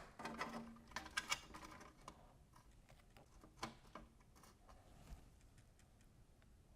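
Faint, scattered clicks and light knocks of hands handling small hardware, a quick cluster in the first second and a half and a few single clicks later.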